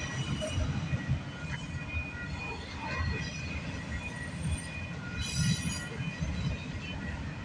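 Freight train cars rolling past with a steady low rumble, and steel wheels squealing on the rails in thin high tones. A brief louder burst of squeal comes about five seconds in.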